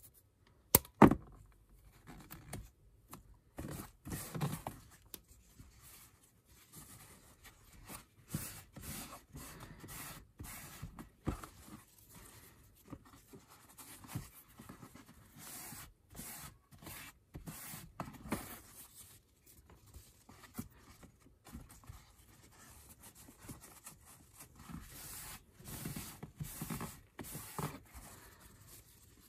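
Tape pulled off a roll with a sharp snap about a second in, then a sheet of pulp nonwoven cooking sheet rustling, scraping and crinkling as hands press and fold it flat on a tabletop.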